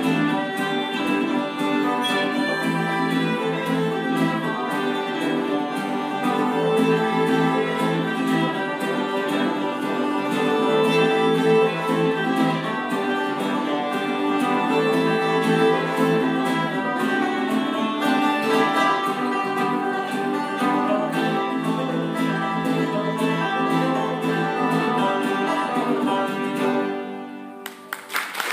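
Bluegrass string band playing an instrumental: fiddle and banjo with a third plucked string instrument, ending together about a second before the end, where applause begins.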